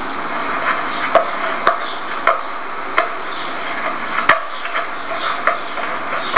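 Chopping in a kitchen: a sharp knock about every half second to second over a steady background hiss, with faint high chirps between the knocks.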